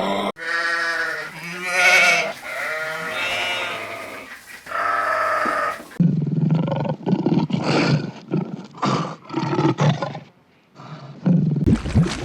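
Animal cries in a string of separate clips. Drawn-out pitched calls that bend up and down fill the first six seconds. After a sudden cut come shorter calls repeated about once a second, then a brief pause, and a different clip starts near the end.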